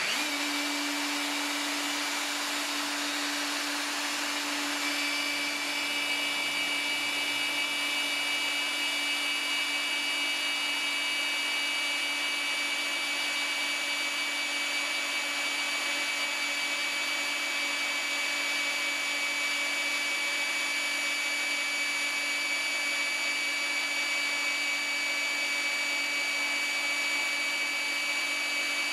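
Magnetic drill motor running at full speed in its first gear while its annular cutter bores a hole through a metal plate: a steady whine that holds one pitch, with a higher whine joining about five seconds in.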